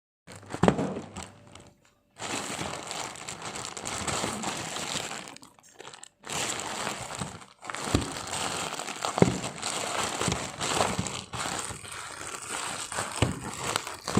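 Packaging being handled and opened, crinkling and rustling, with a few sharp knocks. It breaks off briefly several times.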